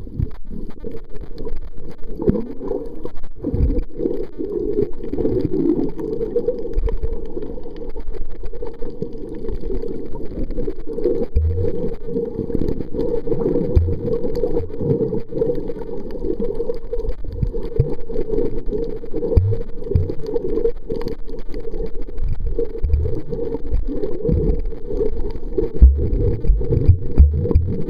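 Muffled underwater noise picked up through a waterproof camera housing: a steady dull rumble of moving water, with a few short low knocks, most of them near the end.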